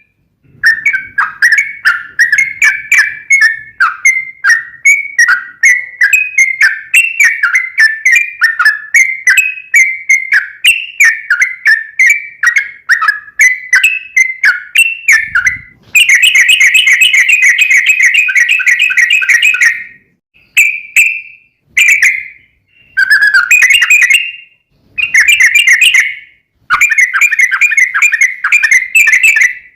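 Trucukan (yellow-vented bulbul) singing: a long run of quick, bubbling chirps, then from about two-thirds of the way in a loud, fast, unbroken chatter for some four seconds, breaking into short bursts of the same chatter near the end.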